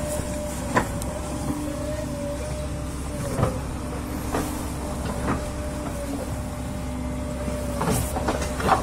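Excavator's diesel engine running at a steady drone, with several short sharp knocks spread through it.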